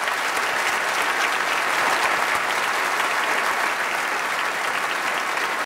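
Large concert-hall audience applauding steadily: a dense wash of many hands clapping.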